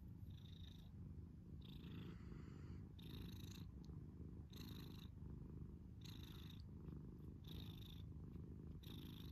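A domestic cat purring steadily while being petted, a soft low rumble with a light breathy hiss coming back about every second and a half.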